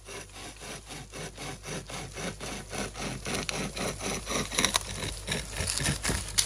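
Hand saw cutting through wood in quick back-and-forth strokes, about three a second, growing louder.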